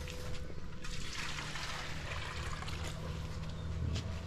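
Water trickling, a steady watery hiss that grows stronger about a second in.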